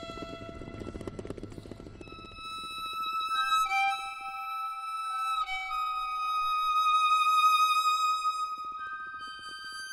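Background music: a slow melody of long held notes, each sustained for a few seconds before moving to a new pitch.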